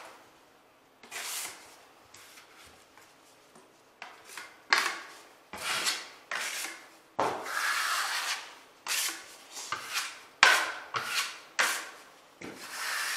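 Steel drywall taping knife scraping wet joint compound over paper tape on a drywall seam, pressing the mud behind the tape. One stroke about a second in, then a quick run of about ten short scraping strokes from about four seconds in.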